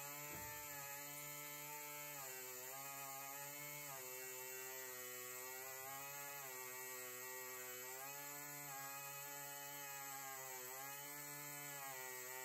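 Air-powered pencil die grinder spinning a small grinding stone at high speed, a steady multi-tone whine whose pitch sags briefly about every two seconds.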